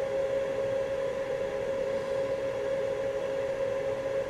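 Steady machine hum with a droning tone over a hiss, like a small fan or motor running without change.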